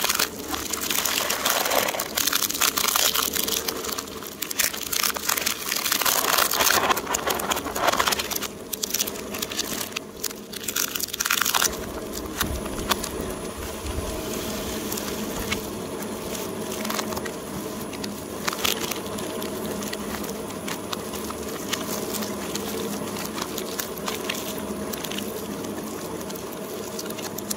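Twin-shaft shredder's cutter discs crushing and cracking plastic surprise-egg capsules and their wrappers, with loud crunching and snapping for about the first twelve seconds. After that the shredder runs on more steadily with lighter crackles.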